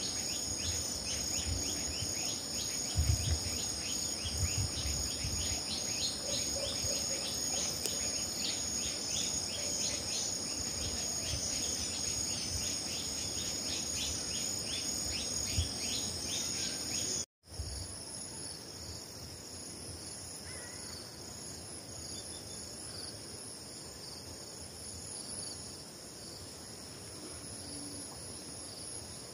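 Field insects chirring in a steady high-pitched chorus, with a pulsed chirp repeating a few times a second over it for the first half. After a brief dropout about 17 seconds in, only a softer steady high drone goes on. A few low bumps come in the first few seconds.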